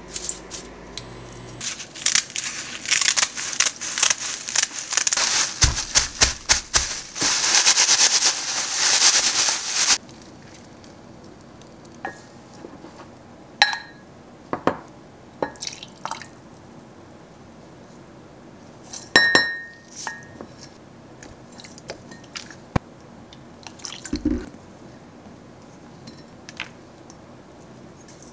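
Dried laver sheets crackling crisply as they are toasted and pressed in a dry frying pan, a dense crackle that cuts off about ten seconds in. After that come a few sparse clinks of a spoon and a small cup against a glass mug as seasonings are added.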